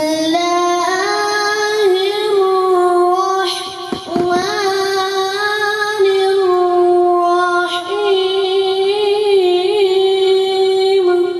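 A boy's solo voice chanting a religious recitation without accompaniment, in two long melodic phrases of drawn-out, wavering held notes, with a short breath about four seconds in; the chant stops just before the end.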